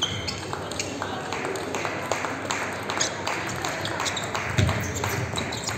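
Table tennis ball being served and played in a rally, with quick, uneven clicks as the ball strikes the rackets and the table. A dull thump comes about four and a half seconds in.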